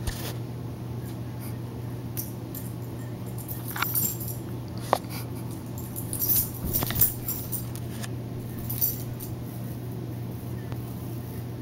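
A small dog making a handful of brief, sharp sounds as it plays, the busiest stretch a little past the middle, over a steady low hum.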